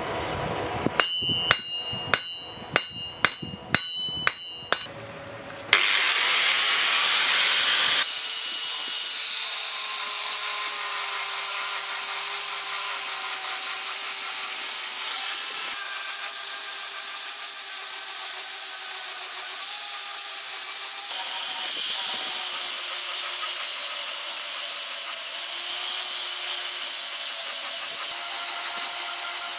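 Steel struck about nine times, roughly two blows a second, each blow ringing like a bell. About six seconds in, a power tool starts working the metal and runs steadily with a loud, hissing sound.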